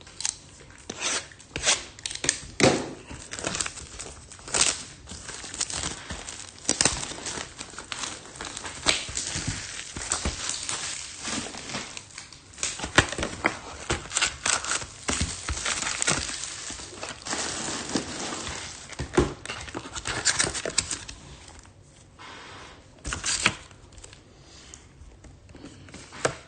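Trading card box packaging being torn open and crinkled: plastic wrap and foil card packs ripping and rustling, with many small sharp clicks and crackles through most of the stretch.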